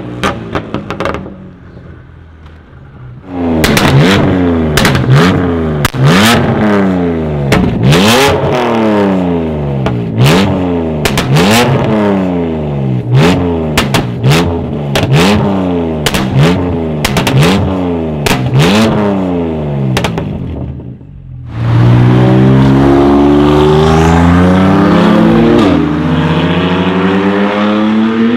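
Tuned BMW M2 Competition's twin-turbo straight-six, decatted, with TTE740 turbos and an Akrapovic exhaust. It is blipped in a rapid run of short revs, about one a second, each rising and falling with sharp cracks and pops from the exhaust. It then accelerates hard in one long rising pull and shifts up once near the end.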